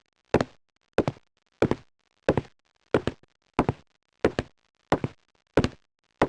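Footsteps: a person walking at an even pace, about three steps every two seconds, each step a quick double hit.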